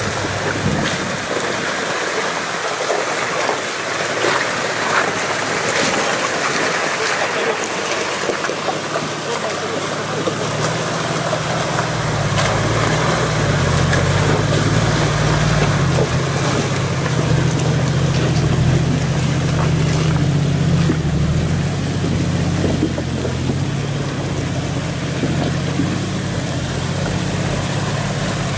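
Shallow mountain stream rushing over rocks. From about eleven seconds in, the low engine rumble of a Toyota Land Cruiser 80 driving slowly up the streambed joins it, loudest around the middle and easing a little near the end.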